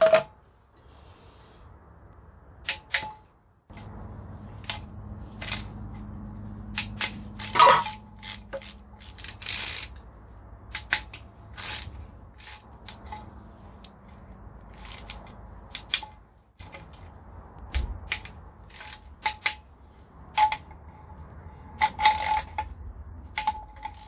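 Sharp metallic clicks and clinks at an uneven pace: a hand ratchet and bit working the M8 triple-square bolts of an Audi 4.2 V8's oil pan loose. A low steady hum runs under it from about four seconds in.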